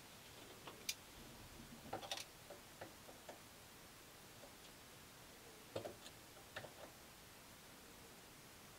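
A few faint, scattered clicks and taps of a metal caliper being set against a turned steel shaft to measure its diameter. Otherwise near silence.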